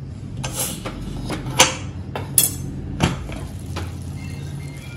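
Pressure cooker lid being unlocked and taken off: a handful of sharp metallic clicks and clanks, over a steady low hum.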